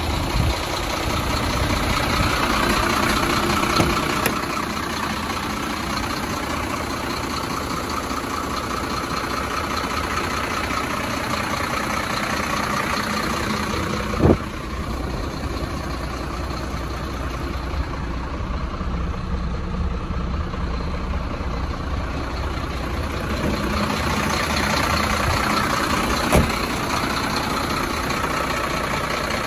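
Mercedes-Benz Axor 2633 cement mixer truck's diesel engine idling steadily, with a sharp knock about halfway through and another near the end.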